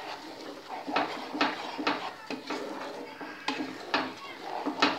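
Wooden spatula scraping and knocking against a kadai while stirring thick semolina dough cooked in milk, in quick repeated strokes about two a second.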